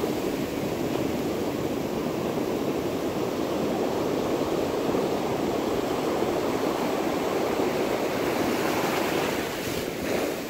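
Ocean surf breaking and washing onto the beach, a steady rushing wash of waves that eases slightly near the end.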